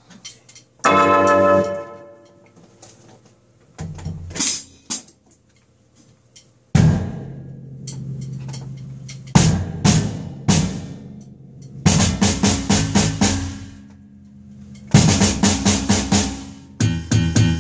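Electronic drum kit played with sticks: scattered single hits, some ringing on as long pitched tones, then two fast rolls near the end.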